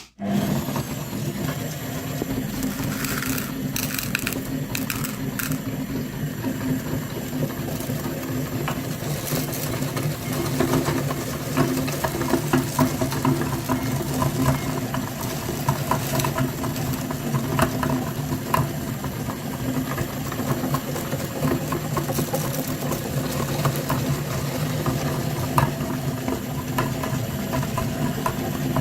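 Small electric grinder motor starting suddenly and running steadily with a low hum, with rattling and clicking over it.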